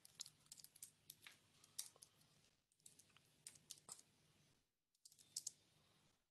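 Faint typing on a computer keyboard: irregular key clicks, with a short pause about three-quarters of the way through.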